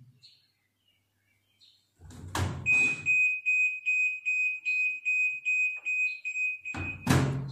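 Washing machine control panel beeping rapidly, a high tone pulsing about three to four times a second for about four seconds: an error alert from a machine that will not go into its spin cycle. There is a thump just before the beeping starts and another as it stops.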